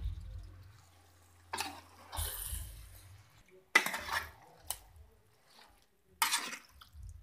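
Metal spoon stirring raw chicken pieces with masala in a large metal cooking pot: several separate scrapes and knocks of the spoon against the pot, a second or so apart.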